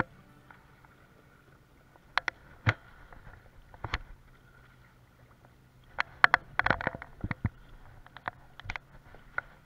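Kayak in choppy water: irregular sharp knocks and slaps against the hull, heaviest in a quick cluster about six to seven seconds in, over a faint steady hum.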